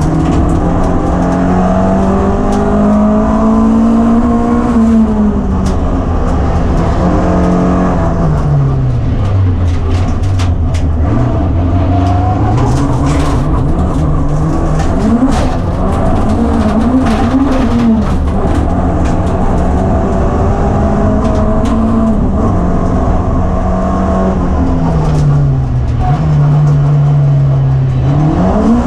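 Classic rallycross car's engine heard from inside the cabin under hard racing, revs climbing and falling through gear changes and corners, dropping low about nine seconds in and again near the end. A scatter of sharp clicks and rattles comes around the middle.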